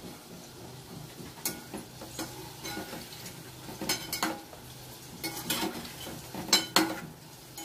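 Scattered light clicks, taps and scrapes of hands pressing and shaping dough on a floured wooden rolling board, a few sharper ones about four seconds in and again near the end, over a faint steady hum.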